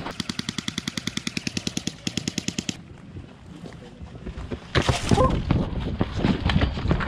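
Airsoft gun firing a full-auto burst, a rapid even rattle of about a dozen shots a second that stops about two and a half seconds in. After a short lull come louder irregular knocks and rustling.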